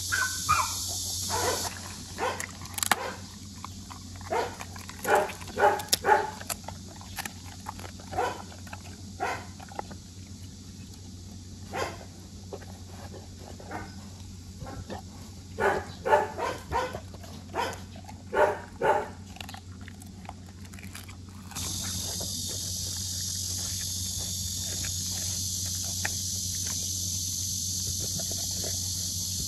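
Rottweiler chewing a half-thawed, half-frozen duck: a run of short crunching bites through icy meat and bone, coming in clusters. About two-thirds of the way through a steady hiss comes in, and the chewing becomes fainter.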